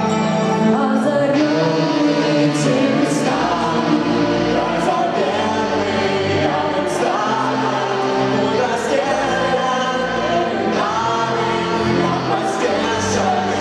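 Live song performance: electric guitar and keyboard with singing, and low bass notes coming in about three seconds in.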